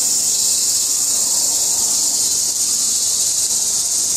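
Cicadas shrilling in a dense, steady chorus, an unbroken high-pitched buzz.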